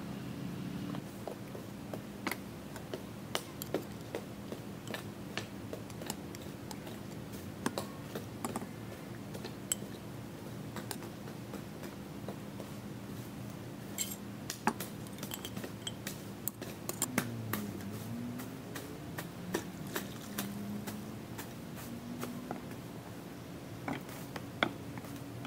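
Scattered clinks and taps of cookware being handled: a spoon, a glass lid, a black clay pot and metal pans knocking against each other on a table, over a steady low hum.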